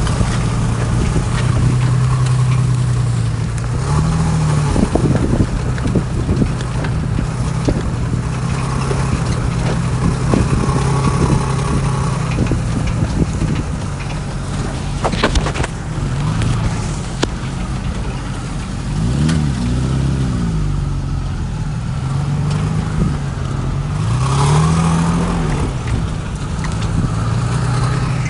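Toyota FJ Cruiser's V6 engine pulling at low revs through tall grass, its pitch rising and falling several times as the throttle is worked, over a steady rushing noise. A single sharp knock comes about halfway through.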